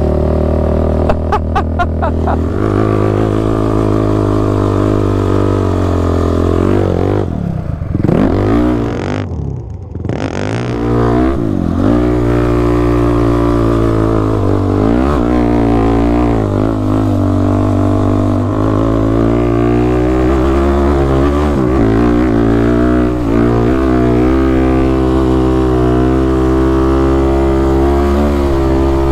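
Sport quad ATV engine running under throttle at steady revs. About a third of the way in the revs drop and rise again as the throttle is eased off and reapplied, before the engine settles back to a steady pull.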